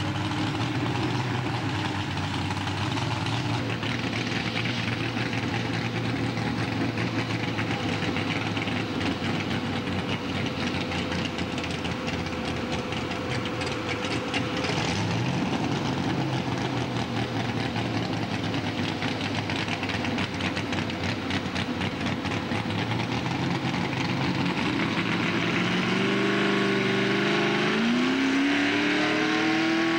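Mini modified pulling tractor's engine running steadily at idle. Near the end it revs up, dips and rises again as the tractor starts its pull against the sled.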